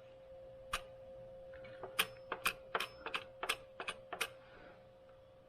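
A string of sharp clicks and taps from hard parts being handled during clutch work: one about a second in, then a quick run of about ten between two and four and a half seconds in.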